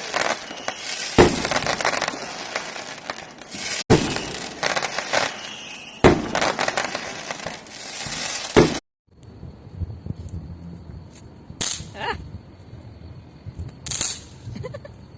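Firecrackers going off in a dense continuous crackle, with a loud bang about every two and a half seconds. The noise cuts off abruptly about two-thirds of the way through, after which only two sharp cracks stand out over a quieter background.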